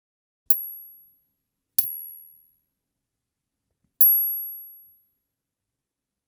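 A metal coin clinked three times. Each strike is a sharp tick followed by a thin, very high ring that fades within a second, the last one ringing longest.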